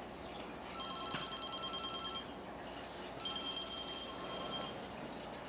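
A toy phone's electronic ring: two bursts of steady high tones, each about a second and a half long, a second apart.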